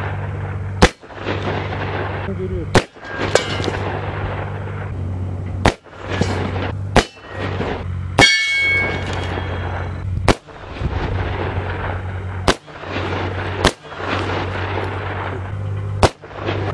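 Gunshots fired one at a time at ballistic test targets: about nine sharp shots, spaced one to two and a half seconds apart. One shot a little past the middle is followed by a brief metallic ringing.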